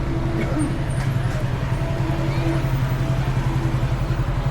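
A motor vehicle's engine running steadily, a low throbbing hum.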